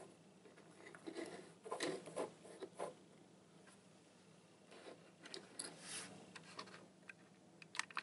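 Plastic toy figures being handled and set down on a tabletop: a few soft knocks, clicks and brief scrapes, most of them about two seconds in and again around five to six seconds.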